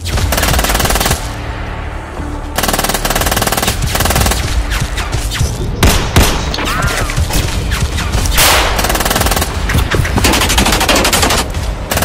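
Automatic gunfire in long, rapid bursts, shot after shot in quick succession, with music underneath.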